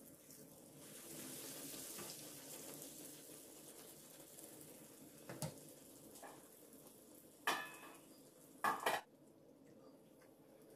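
Zalabia dough frying in hot oil in a pan, the oil sizzling, strongest a second or two in. Kitchen tongs click against the pan a few times, with the loudest clacks in the last few seconds as the bread is turned.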